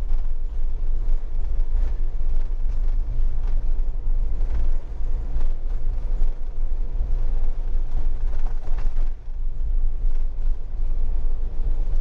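Cab noise of a motorhome driving on a wet road: a steady low rumble of engine and tyres, with occasional creaks and rattles from the vehicle's fittings.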